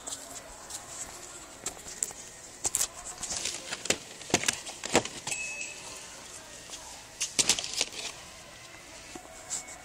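Handling noise from a handheld phone: scattered clicks and rustles over a steady background, with sharp ones near the middle and a cluster about three-quarters of the way in.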